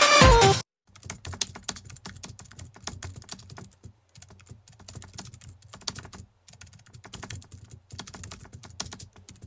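Electronic music cuts off about half a second in, then rapid, irregular clicking of keyboard typing, with short pauses between runs of keystrokes.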